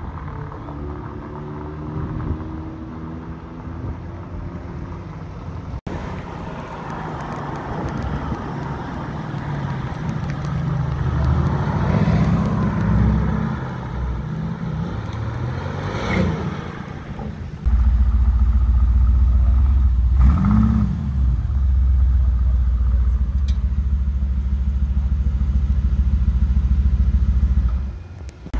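Sports car engines on a city street: cars accelerating and passing. For the last ten seconds a Mercedes-AMG GT R's twin-turbo V8 idles close by with a loud, steady deep rumble, broken once by a short rev blip.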